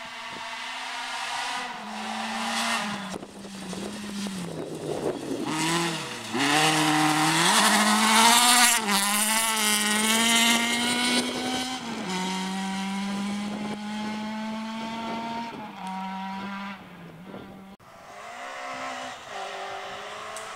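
Rally car engine revving hard as it comes down a gravel stage and slides past close by, its pitch rising and falling through gear changes, loudest about halfway through with a rush of tyre and gravel noise. After a sudden break near the end, another car's engine is heard more faintly as it approaches.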